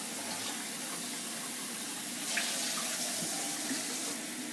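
Tap water running into a sink while a soaked dish is rinsed out under the stream; the splashing gets brighter about halfway through.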